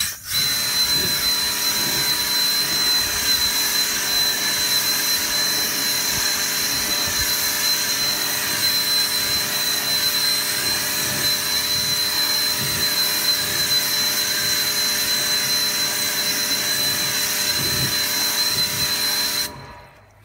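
Pressure washer running, its lance spraying water to rinse a freshly sealed car body panel: a steady hiss of spray with a high, even whine, stopping suddenly near the end.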